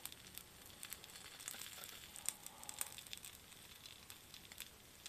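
Shrimp shumai frying on an electric hot plate: a faint, even sizzle with scattered small crackles as their bottoms fry crisp.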